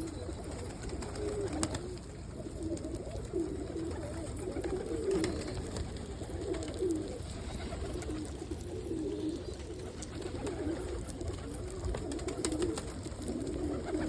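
Several domestic pigeons cooing continually, low warbling coos overlapping one another, with a few faint clicks in between.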